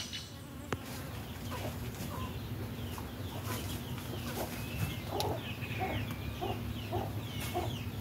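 Bees buzzing with a low steady hum. Chickens cluck repeatedly from about five seconds in, and brief high chirps come and go.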